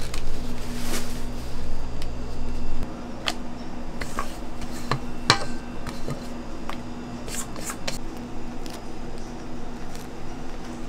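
Kitchen handling noises: scattered light clicks and knocks of trays and utensils over a steady low hum, with a low rumble that stops abruptly about three seconds in.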